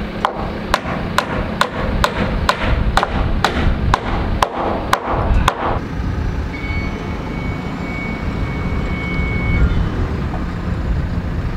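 Hammer blows driving fasteners into timber framing, about two a second for some six seconds, then stopping. A telehandler's engine runs steadily underneath, with a thin steady whine for a few seconds later on.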